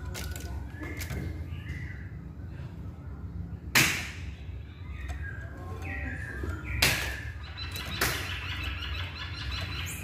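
A poksay Hongkong laughingthrush singing short whistled phrases that slide up and down in pitch. Three sharp noises about 4, 7 and 8 seconds in are the loudest sounds, and a steady low hum runs underneath.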